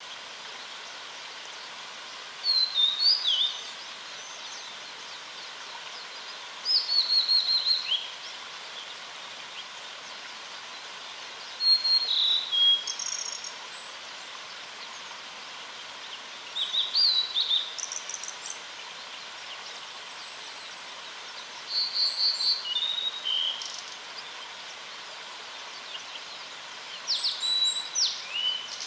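Male blue-and-white flycatcher singing: six short whistled phrases about five seconds apart, each about a second long, with notes stepping down in pitch, over a faint steady hiss.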